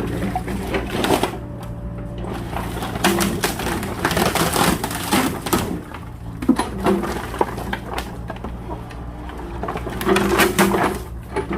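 Small excavator's engine running steadily, with repeated cracks, knocks and scraping as its bucket pushes and breaks up wooden pallets.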